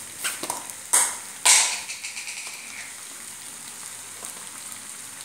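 Masala macaroni sizzling in an aluminium kadai: a steady frying hiss. In the first two seconds a metal spatula scrapes through it a few times, the loudest stroke about a second and a half in.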